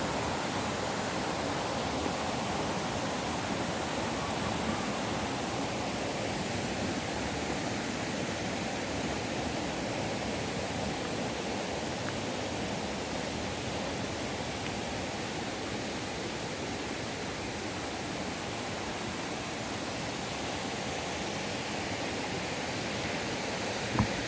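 Steady rushing of a rain-swollen forest stream, with one short tap near the end.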